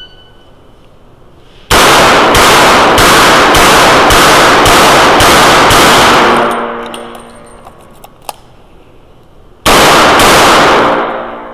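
Revolver with a red-dot sight fired in a quick string of about eight shots a little over half a second apart, each echoing off the walls of an indoor range. A pause of a few seconds follows with a couple of light clicks while the revolver is reloaded, then firing resumes near the end.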